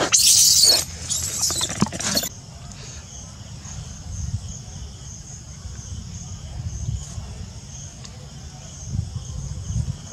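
A baby macaque gives two shrill screams in the first two seconds, one short and one longer, then falls quiet. A steady, high insect buzz runs underneath throughout.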